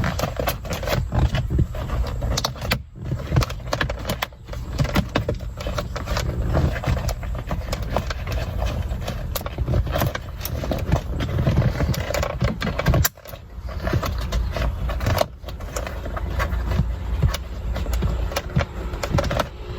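Shift boot being worked back into the console by hand, a steady run of small clicks, taps and rustles as its tabs are pushed under the lip, with a few brief pauses.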